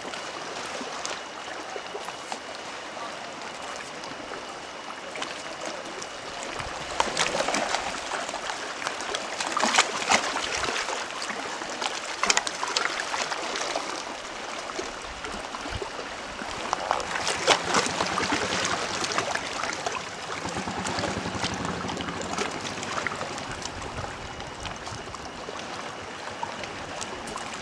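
Seawater sloshing and splashing, with bursts of louder splashes about a quarter of the way in and again past the middle.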